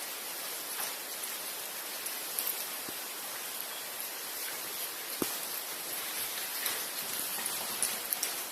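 Steady hiss with a few faint, scattered clicks, the clearest about five seconds in.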